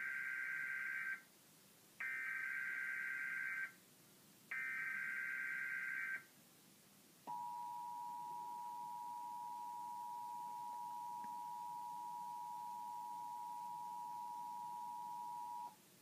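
Emergency Alert System tones heard through a TV speaker: three identical buzzy SAME header data bursts, each about a second and a half long, then the steady two-tone EAS attention signal held for about eight seconds before cutting off. Together they open a test Tornado Watch alert.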